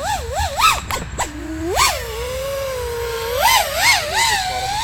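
FPV quadcopter's MEPS 2207 1750KV brushless motors and props whining, the pitch swooping up and down sharply with quick throttle punches, several fast swoops near the start and again near the end. A few sharp clicks come about a second in.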